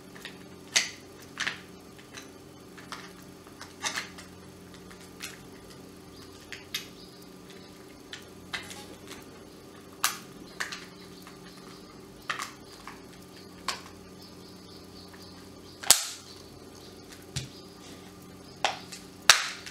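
Plastic housing of an Orpat HHB-187E hand blender clicking and knocking as its front cover is pressed and seated onto the body: irregular sharp taps about once a second, the loudest two near the end.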